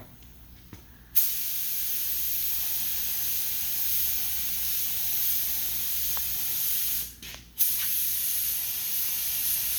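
Air spray gun spraying lacquer primer at low air pressure: a steady hiss that starts suddenly about a second in, stops briefly near seven seconds as the trigger is let off, then starts again.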